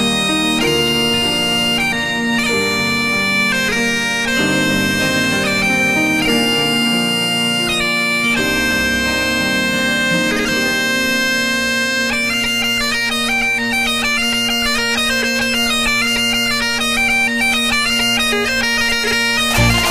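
Bagpipes playing a tune over a steady drone, the melody notes coming quicker in the second half.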